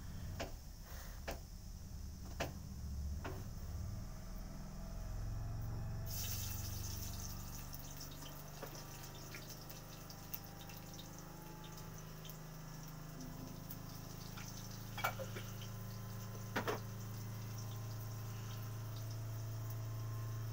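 Occasional sharp clicks of beads and fingers knocking against a hard tabletop as the beads are picked up and set down, over a steady low hum. A faint hiss comes in about six seconds in.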